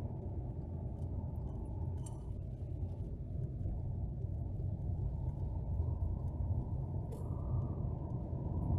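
Car driving, a steady low rumble of engine and road noise, with two faint ticks about two and seven seconds in.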